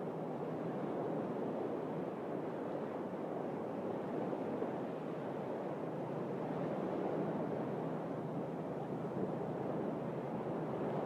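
Sea surf washing in a steady, unbroken rush.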